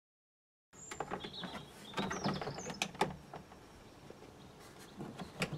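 Plastic inner tailgate trim panel of a VW Golf Mk5 being handled and offered up to the tailgate: a run of plastic clicks, knocks and rattles, loudest around two and three seconds in and again near the end.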